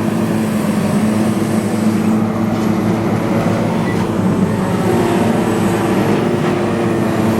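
Diesel engine of heavy demolition machinery running steadily with a constant drone.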